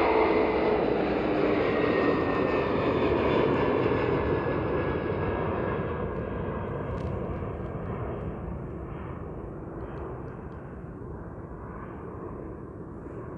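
Airbus A310 freighter's twin jet engines at takeoff thrust as it climbs away, a loud rumble with a whine dropping in pitch at first. The sound fades steadily as the aircraft recedes, losing its higher hiss about halfway through.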